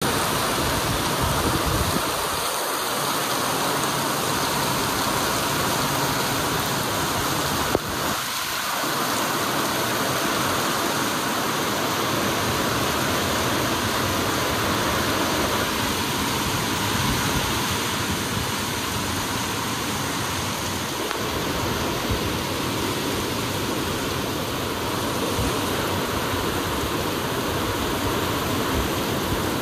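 Steady rain falling, an even hiss of water throughout, with one brief click about eight seconds in.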